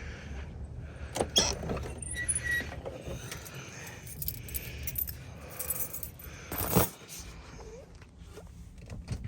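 A bunch of keys jangling, with scattered clicks and knocks and one louder clunk about two-thirds of the way through.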